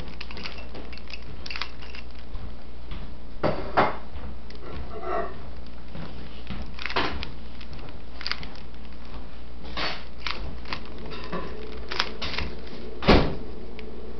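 Plastic 3x3 Rubik's cube being turned by hand: irregular clicks and clacks as the layers snap round, the loudest near the end, over a steady hiss.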